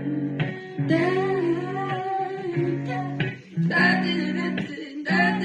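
Electric guitar playing sustained chords under a voice singing, in short phrases with a brief break a little after three seconds in.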